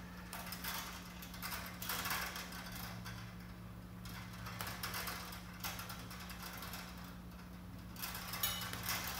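Hand wire strippers working on the ends of electrical wires: repeated clicks and scrapes of the jaws and of insulation being pulled off, in about six short bursts.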